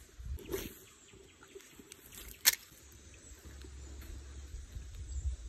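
Footsteps and handling noise on a dirt creek bank, with one sharp click about two and a half seconds in, then a steady low rumble building toward the end.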